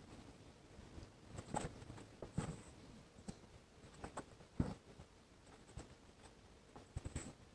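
Faint scratching and soft ticking of an embroidery needle and floss being pushed and drawn through fabric while working a coral stitch. Several short, separate sounds, the loudest a little past halfway and a quick pair near the end.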